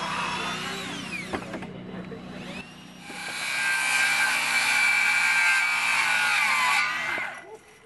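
A cordless drill boring into a timber plank and spinning down, then, about three seconds in, a DeWalt XR cordless circular saw cutting through a plank for about four seconds before it winds down near the end.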